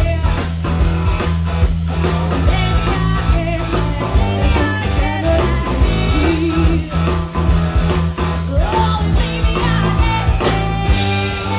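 Live country-rock song played loud through a stage PA: women singing with electric guitar, bass and drums.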